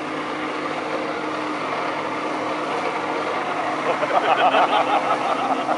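Jet ski engine running steadily at high revs to pump water up the hose of a water jetpack, with the rush of the jetpack's water jets. A louder voice comes in over the last two seconds.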